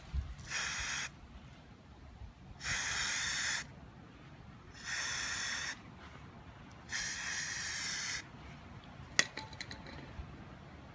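Rust-Oleum Camouflage aerosol spray paint can, worked with a clip-on trigger handle, sprayed in four hissing bursts of about a second each, a second or so apart. A single sharp click comes near the end.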